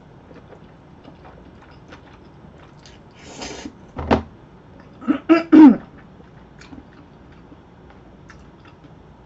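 A person eating jjajangmyeon (black bean noodles): soft chewing, a noodle slurp about three seconds in, then a sudden short fit of coughing, three loud coughs a little after the middle, as food goes down the wrong way.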